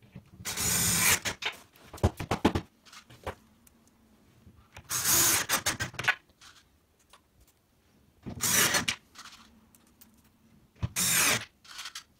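Bosch cordless drill-driver driving screws through plastic joint blocks into melamine-faced chipboard panels, in about five short whirring bursts of roughly a second each, with clicks of the screws seating between them.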